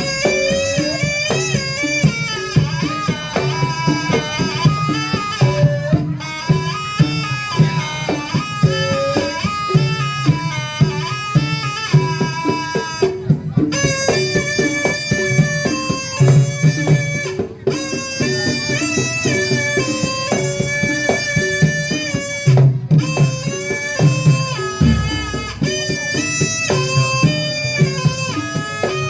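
Instrumental music: a held, ornamented melody line over a steady drum beat and bass.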